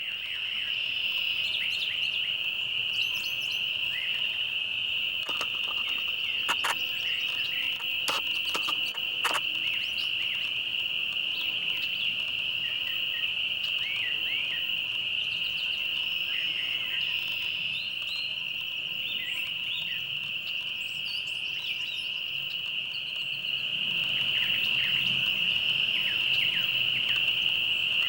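Steady, high-pitched insect chorus, with short bird chirps and calls scattered over it and a few sharp clicks about six to nine seconds in.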